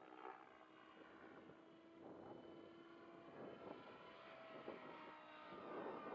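Faint, distant whine of a 3D RC helicopter flying overhead, a thin steady tone that shifts a little in pitch as it manoeuvres. Wind rumbles on the microphone and grows louder near the end.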